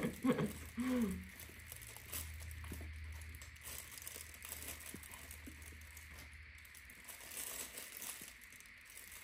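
Faint crinkling of a thin plastic glove and plastic bag, with scattered small clicks and scrapes, as a cut papaya is handled and scraped with a spoon. A short voiced sound comes in the first second.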